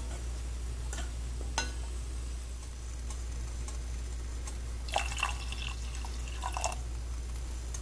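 Water poured from a measuring cup into a steel pot of creamed corn, splashing in short bursts about five seconds in and again near six and a half seconds. A couple of sharp knocks from the spoon against the pot come in the first two seconds, over a steady low hum.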